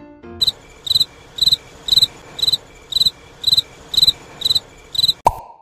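Cricket chirping sound effect, an even chirp about twice a second: the comic 'crickets' that mark an awkward silence. It stops with one sharp click near the end.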